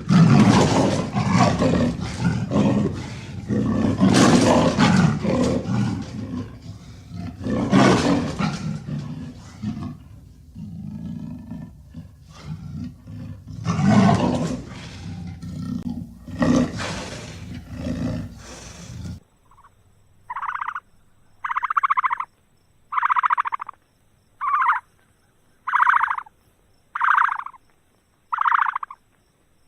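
A large wild animal roaring and growling in loud, irregular deep bouts. About two-thirds of the way through, this gives way to a different animal giving a series of short, pitched calls, evenly spaced about one a second.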